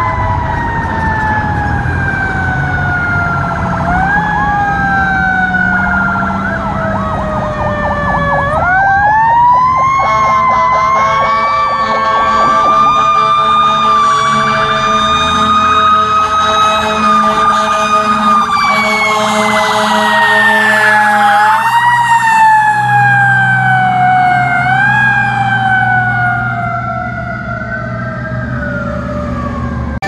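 Fire engine sirens sounding as the truck drives off: a Federal Q2B mechanical siren winding up and coasting down in long, slow wails, with an electronic siren's fast yelp over it at times. A diesel engine runs underneath.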